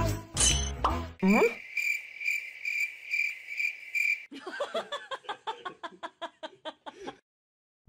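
Comedy sound effects. The backing music breaks off about a second in and a quick rising whistle follows. Then comes a cricket-chirping effect, a steady high pulsing trill lasting about two and a half seconds and used as the cue for an awkward silence. A run of quick ticking notes follows and stops abruptly, leaving silence near the end.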